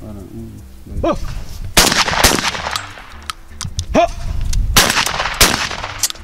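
Shotgun shots at flying clay targets: four shots in two pairs, the two shots of each pair about half a second apart, each echoing. Each pair follows a short shouted call about a second earlier.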